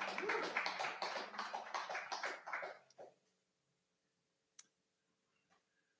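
A small audience applauding for about three seconds, the clapping dying away. A single click follows a little later.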